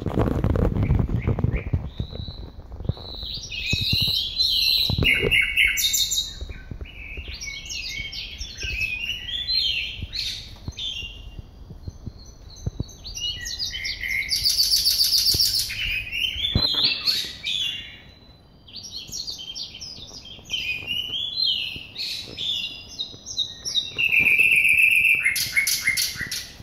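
Caged songbirds singing long, varied phrases of clear whistles, trills and buzzy notes, broken by short pauses. A low rumble of the phone being moved fills the first couple of seconds.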